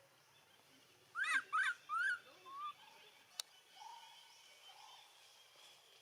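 A baby monkey's cries: four short calls in quick succession, each rising then falling in pitch, the last two softer. A single sharp click follows about a second later.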